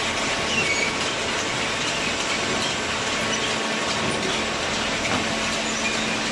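Semi-automatic hydraulic carton baler running: a steady mechanical noise with faint clicking, and a low hum that grows stronger near the end.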